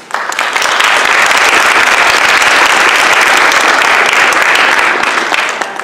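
Audience applauding, beginning at once, holding steady for about five seconds, then dying away near the end.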